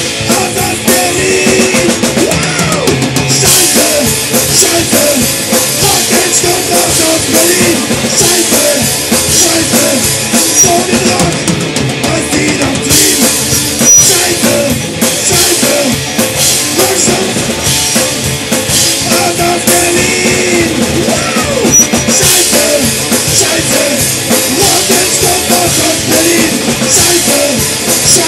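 Oi punk band playing a rehearsal-room demo recording, loud and steady, driven by a drum kit with bass drum.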